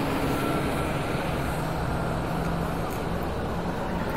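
A vehicle engine running steadily at idle, a constant low hum over a steady background rush.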